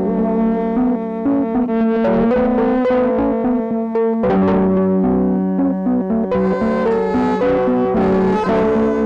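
Instrumental background music: held, brass-like chords over struck notes that fade away.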